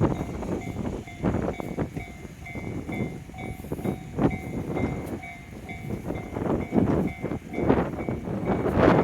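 Japanese railway level crossing alarm ringing, its electronic bell tone repeating steadily, over irregular low rushes of noise.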